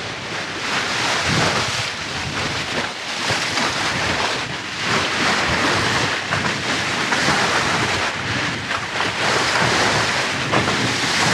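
Wind buffeting the microphone over the steady rush and splash of sea water along a sailing catamaran's bow as it moves under way.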